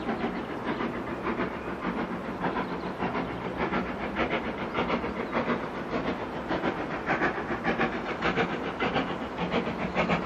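LMS 'Jinty' 0-6-0 tank locomotive No. 47279 working a train under steam, its exhaust beating rhythmically over a steady rumble and hiss, getting louder as it approaches.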